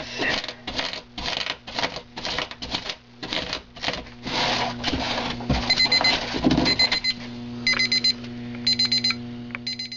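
Hand tools clattering and scraping about three times a second. Then, from about halfway through, an electronic alarm beeps in short bursts about once a second over a steady low hum.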